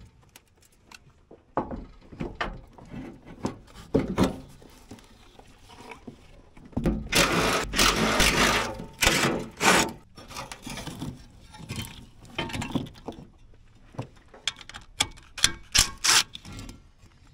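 Cordless DeWalt driver running in short spells to back out fasteners, the longest run about seven seconds in, amid clicks and clunks of metal parts being handled.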